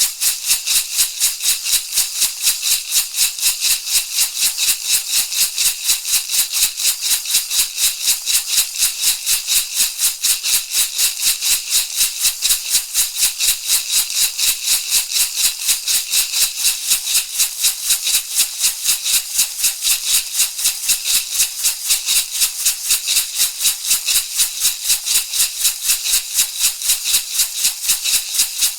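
Shamanic rattle shaken in a steady, even rhythm, about three strokes a second, each stroke a crisp, hissy rustle of the rattle's contents.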